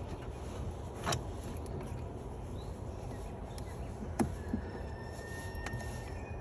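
A few light clicks and taps of a plastic tail light housing being lined up and pressed back into the car body, over a steady low background rumble.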